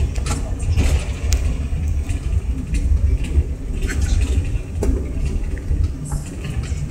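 Cabin noise inside a CRJ900 regional jet taxiing: a steady low rumble from the engines and the wheels rolling, with scattered clicks and rattles.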